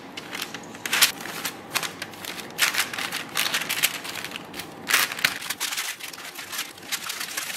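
A spatula scraping a stainless steel bowl as a sticky rice cereal mixture is tipped out onto parchment paper, then hands pressing the cereal flat, the parchment crinkling. Sharp knocks come about a second in and again near five seconds.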